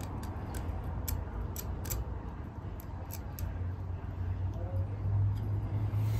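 Metal dental scaler scraping and clicking against a border collie's teeth in a run of short, irregular clicks, mostly in the first half, over a low steady hum.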